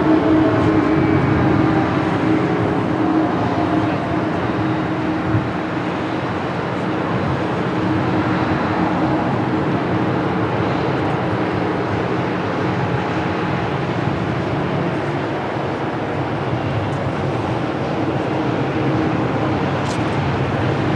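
Steady rumble of jet aircraft engines across the airfield, with a faint falling whine near the start.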